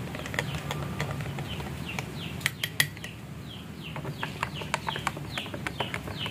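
A metal teaspoon stirring and clinking against glass mugs, with two sharper clinks near the middle. Repeated short falling bird chirps in the background through the second half.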